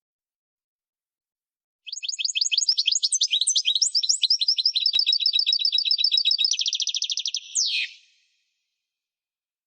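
A small songbird singing one long song of about six seconds, starting about two seconds in: fast repeated chirping notes that run into a rapid trill and end in a quick downward sweep.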